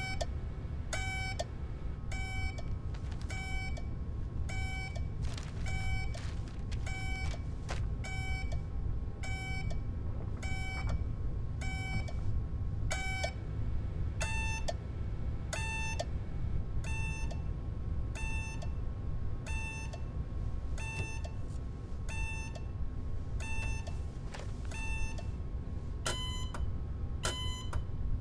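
Short electronic beeps repeating a little over once a second over a steady low hum. About halfway through the beeps shift higher in pitch, and near the end they come faster and higher still.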